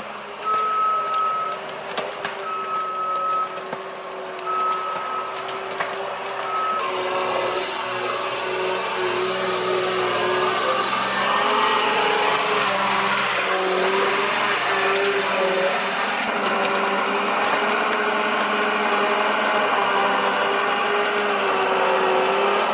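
John Deere forestry forwarder running steadily, its backup alarm beeping about every two seconds for the first several seconds. The alarm then stops and the machine works louder, with a faint high whine rising and falling.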